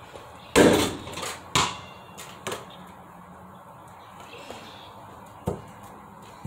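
A basketball shot striking the hoop's plastic backboard and rim with a loud, rattling bang about half a second in, followed by two lighter thuds as the ball comes down and bounces. Another sharp knock of the ball comes near the end.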